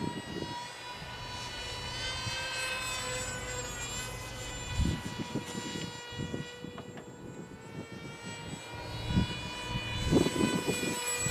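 The brushless electric motor and propeller of an Eachine Micro Skyhunter RC plane whine steadily in flight, the pitch wavering slightly early on. Irregular low buffeting thumps come through around the middle and grow strongest near the end.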